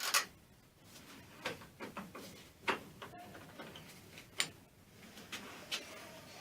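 Irregular sharp clicks and knocks, as of tools and small metal parts being handled on a workbench, about eight in all, the loudest at the very start.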